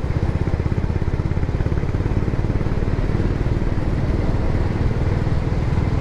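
Motorcycle running at road speed, its engine a steady low pulsing under wind noise on the microphone.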